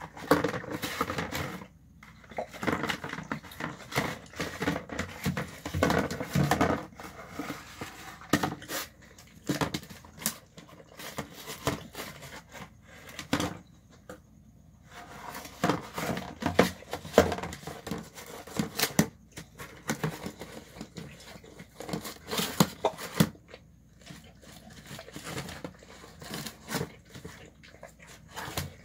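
Dog eating chicken bone nubs and rice from a plastic tub: irregular crunching and chewing, broken by two short pauses.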